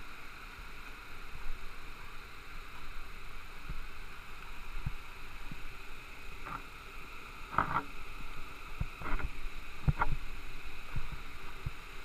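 Waterfall and stream rushing steadily, with a few scattered knocks and thumps, such as footsteps on the rocky trail, in the second half.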